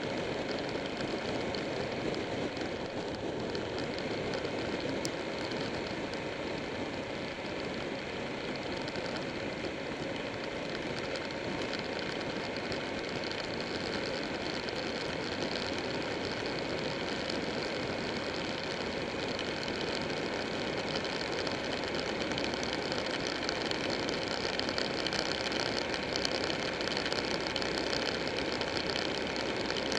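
Buell 1125R's liquid-cooled V-twin engine running steadily at road speed, heard through heavy wind and road rush on a bike-mounted camera, growing a little louder in the last few seconds.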